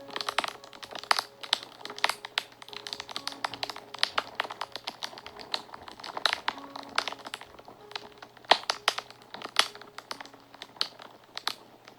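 Fire crackling and popping: dense, irregular sharp snaps, one louder pop about eight and a half seconds in, over quiet background music of soft held notes.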